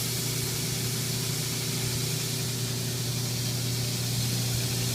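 Belt grinder running with a steady, even hiss from the belt over a low steady hum, the furnace-blower dust extractor also running.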